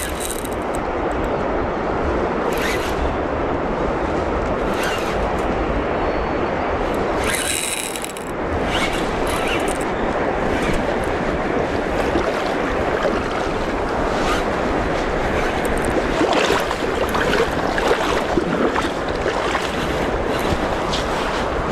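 Steady rushing of wind on the microphone and water at the bank, with scattered clicks and rustles from handling a baitcasting rod and reel while playing a cherry salmon.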